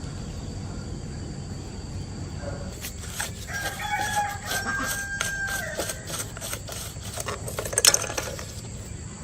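A rooster crowing once, a single drawn-out held call starting about three and a half seconds in. Around it come a run of short clicks and taps, with the loudest sharp knocks near the end.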